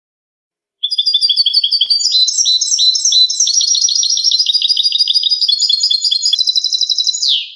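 European goldfinch singing: one long phrase of fast, high twittering notes that starts about a second in and ends with a quick falling slur.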